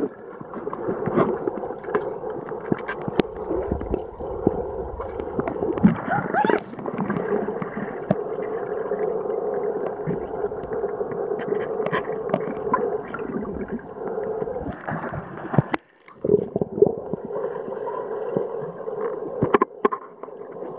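Muffled underwater sound in a swimming pool as a Lagotto Romagnolo dog dives and paddles: steady gurgling water with scattered clicks and knocks. The sound drops out briefly about three-quarters of the way through.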